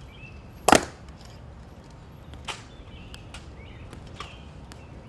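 A single sharp clack from the ceremonial guards' drill about a second in, the loudest sound. It is followed by a few softer clicks of metal-tapped heels on the stone plaza as a guard marches off.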